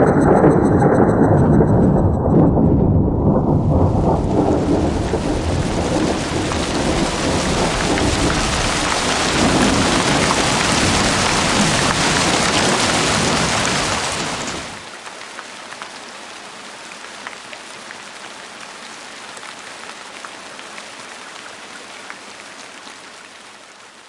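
A thunderclap with a deep rolling rumble, followed by a heavy downpour of rain. About fifteen seconds in the rain suddenly drops to a much quieter, lighter patter.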